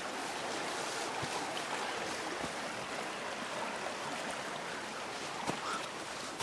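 Steady rushing of a stream, with a few faint clicks.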